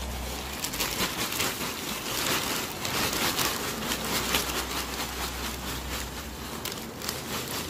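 Packing peanuts pouring from a plastic bag into a cardboard box: a dense, steady rattle of many small light pieces tumbling onto each other, with the plastic bag rustling.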